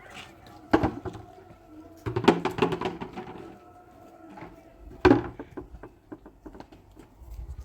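Indoor knocks and clatter. Two sharp strikes stand out, one near the start and one about five seconds in, and a quick run of clicks and knocks comes around two to three seconds in. Smaller clicks follow toward the end.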